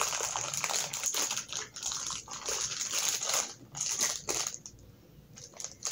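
A clear plastic bag crinkling and rustling in the hands as it is opened around a coiled probe cable. It quietens for about a second near the end, then a few more crackles follow.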